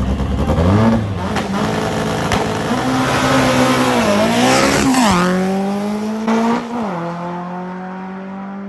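Import drag-race car at full throttle down the strip. The engine note climbs and dips at the gear changes, drops sharply in pitch about five seconds in as it goes past, then holds a steadier fading note.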